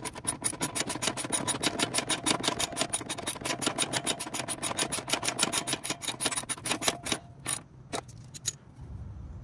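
Ratchet wrench clicking rapidly and evenly, about seven clicks a second, as it runs a 10 mm nut down snug. The run of clicking stops about seven seconds in, followed by a few single clicks.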